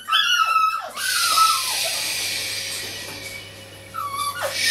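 Puppies whining and yelping in high, falling cries. The cries pause for a couple of seconds, filled by a steady hiss, and start again near the end.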